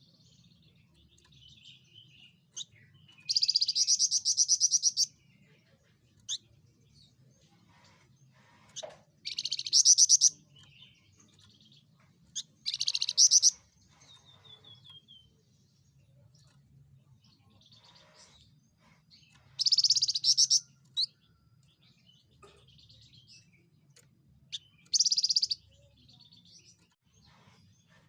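Javan fulvetta (Alcippe pyrrhoptera) singing: a high, rapid trilled phrase lasting one to two seconds, repeated five times at gaps of a few seconds, with short single chirps in between.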